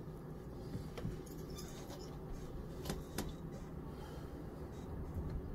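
Quiet room tone with a steady low hum and a few faint clicks, about a second in and twice around three seconds.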